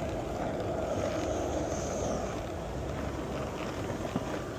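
Skateboard wheels rolling steadily over pavement, a continuous low rolling noise, with wind on the microphone.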